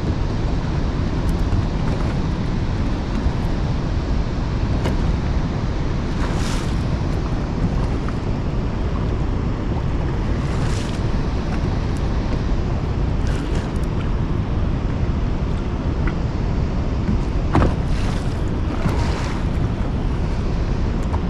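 Steady rush of wind buffeting the microphone over water noise, with a few brief gusts or splashes scattered through it.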